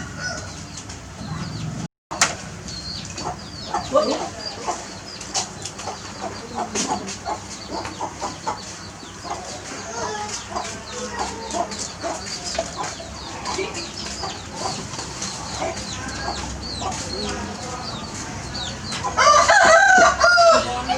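Chickens clucking on and off throughout, with a loud rooster crow lasting about two seconds near the end.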